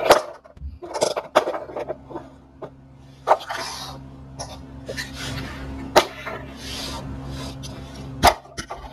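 Handling noise close to the microphone as plastic toy horses are moved about on a hard floor: a few sharp knocks, with breathy rustling in between and a faint steady low hum.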